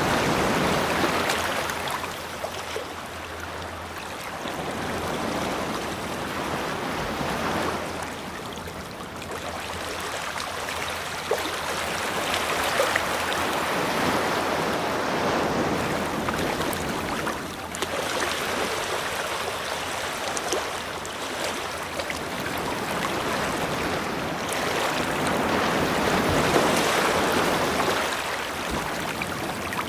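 Ocean waves breaking and washing on a beach: a continuous rush of surf that swells and eases every several seconds.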